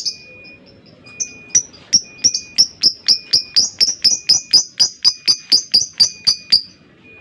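Lovebird calling in a long run of sharp, high chirps, about four a second, starting about a second in and stopping near the end.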